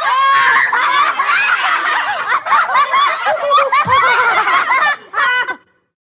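A group of children laughing together, many voices overlapping at once. The laughter cuts off abruptly near the end.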